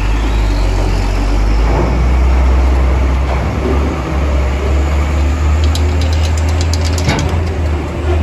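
Heavy cargo truck's diesel engine running with a steady low rumble as the truck drives up a steel ferry loading ramp. About six seconds in there is a quick run of sharp clicks.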